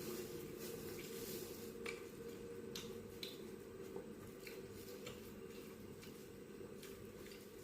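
Soft wet chewing and mouth sounds of someone eating, with scattered small clicks, over a steady faint hum.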